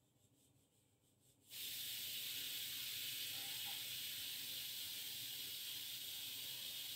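A steady hiss that starts abruptly about a second and a half in and stops sharply at the end.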